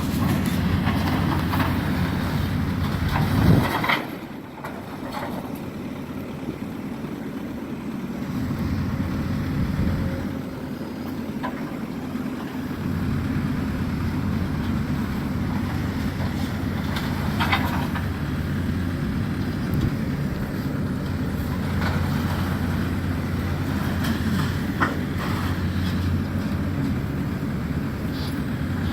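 Diesel engine of a demolition excavator running steadily, with occasional knocks and scrapes as it works the debris.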